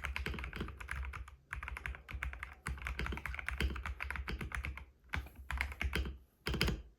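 Typing on a Feker IK75 mechanical keyboard with Gateron Pro Yellow linear switches: fast, dense keystroke clacks that thin out after about five seconds, with a last flurry just before the typing stops.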